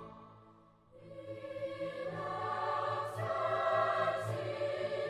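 Choir singing a hymn: a phrase fades away at the start, and the voices come back in about a second in with long held notes.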